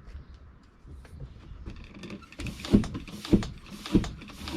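Track pump worked in steady strokes, about one every 0.6 s, starting a little over two seconds in. It is inflating an inner tube fitted inside a tubeless mountain-bike tyre to seat the tyre's bead on the rim. Before the pumping there are only faint handling sounds.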